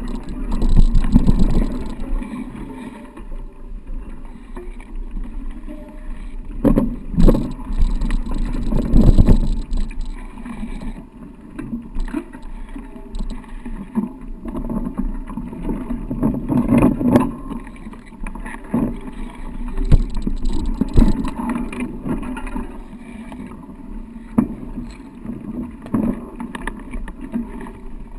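Riding noise from a mountain bike on a rough trail: an uneven low rumble of wind on the microphone, broken by frequent knocks and rattles over bumps.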